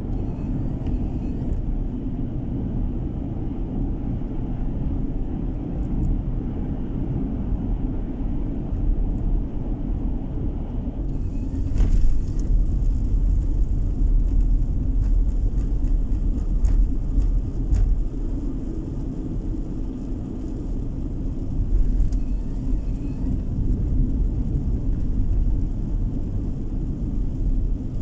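Car driving along a road, heard from inside the cabin: a steady low rumble of engine and tyres. About eleven seconds in, a higher hiss with faint crackling joins the rumble.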